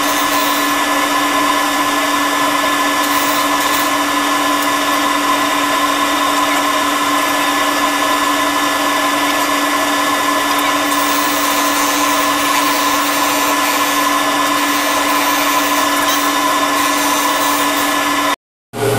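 Big homemade disc sander running steadily while an oak offcut is pressed against the abrasive disc and sanded round on a circle jig: a steady whine over an even hiss. The sound drops out briefly near the end.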